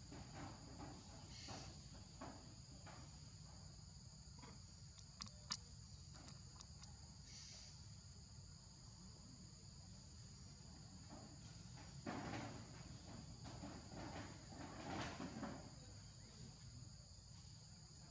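Insects droning steadily at a high pitch as two even tones, over a faint low hum. A single sharp tick comes near the middle, and a couple of brief soft rustles follow later on.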